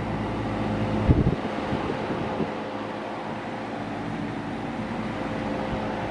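1989 Carrier Tech2000 central air conditioner condensing unit running: a steady hum from the compressor with the condenser fan blowing air. A brief low thump about a second in.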